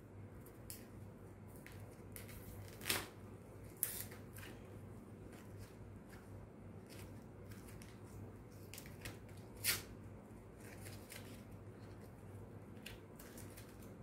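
Faint crackling and rustling of packaging being opened, with scattered small ticks and a few sharper crackles, the loudest about three seconds in and near ten seconds in.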